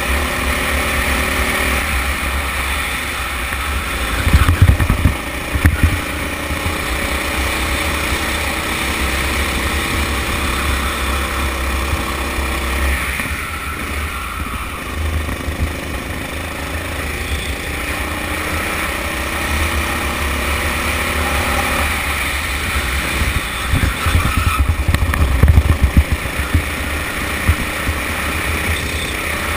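Go-kart engine running under load, its pitch rising and falling as the throttle is opened and lifted through the corners. Two spells of loud low thumping break in, about four seconds in and again about twenty-four seconds in.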